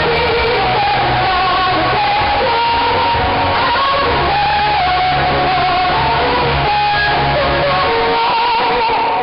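Live pop-rock band music blaring from a PA system, with electric guitar and bass, harsh and distorted from being recorded right next to the speakers.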